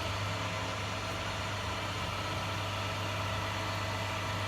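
An engine idling steadily, an even low hum.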